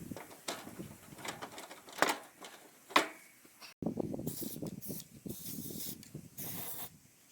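Knocks and rattles of work on a lawn tractor's wheel and axle, with two sharp metallic clanks about two and three seconds in. After a cut there are several short hisses, like bursts of spray.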